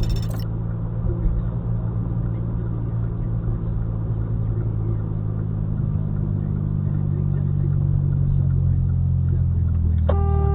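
Steady low drone of a car's engine and road noise heard from inside the vehicle, the deep hum held throughout with only slight shifts in pitch.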